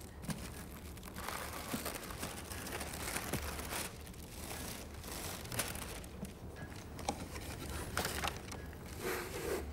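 Brown wrapping paper rustling and crinkling in irregular crackles as a parcel is unwrapped by hand.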